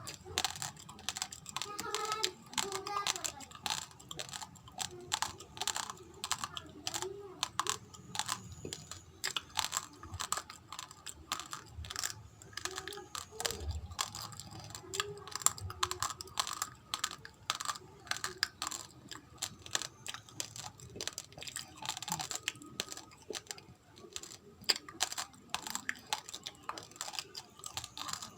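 Raw rice grains being chewed and crunched between the teeth: a rapid, irregular run of sharp, crisp cracks.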